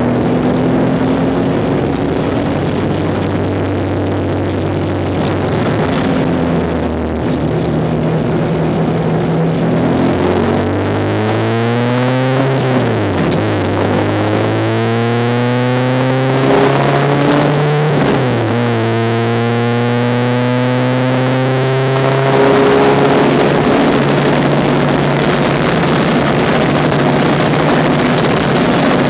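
Honda Civic race car's engine heard from inside the car, pulling up through the revs under acceleration, with two quick drops in pitch for gear changes about 13 and 18 seconds in, then holding high, slowly rising revs.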